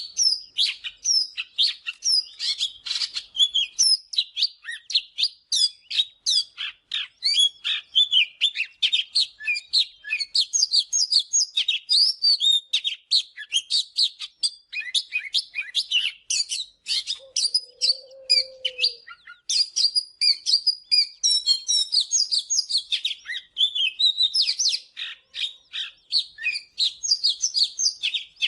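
Oriental magpie-robin singing: a fast, continuous stream of varied whistles, chirps and short trills with scarcely a pause.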